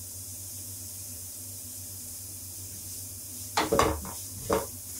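A wooden spatula stirring sautéed onions in a nonstick frying pan, scraping against the pan in two short strokes in the last second and a half. Before that there is only a faint steady low hum.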